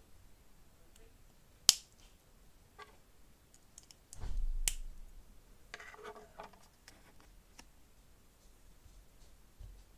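LEGO plates with clip-and-bar hinge pieces being snapped together by hand: one sharp click a little under two seconds in, then a few lighter clicks. A dull handling thump comes around four seconds in, followed by a short clatter of plastic pieces.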